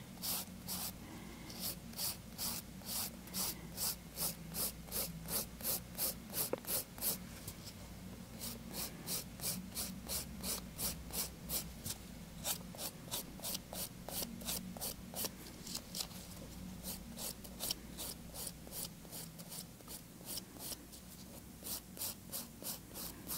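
A hand nail file rasping back and forth in short, light strokes across a thumbnail, blending the edge of the hard gel into the natural nail. About two to three strokes a second, faint, with a few brief pauses.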